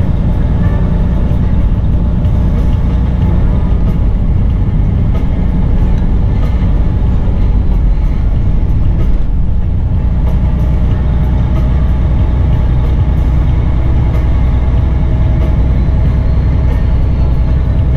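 Semi truck cab at highway speed: the diesel engine and tyres make a loud, steady, low drone with no changes.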